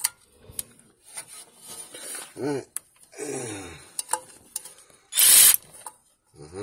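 Hand tools clicking and scraping against the bolts of a Morris Minor's front timing cover as they are undone: a few sharp metallic clicks, and a short, loud rasping scrape about five seconds in. Low grunts from the worker come about halfway through.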